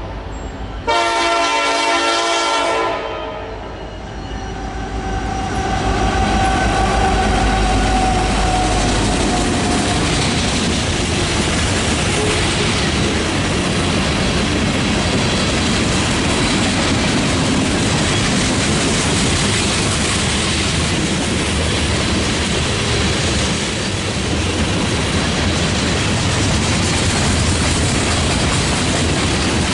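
Freight locomotive's horn sounding one chord blast about a second in, lasting about two seconds. The train then passes close by: a steady rumble and clatter of wheels on the rails, with a faint falling tone a few seconds after the horn.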